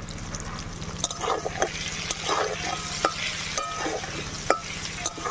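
Potato chunks sizzling in hot mustard oil in a metal kadai while a metal spatula stirs them, scraping and knocking against the pan several times. A steady low hum runs underneath.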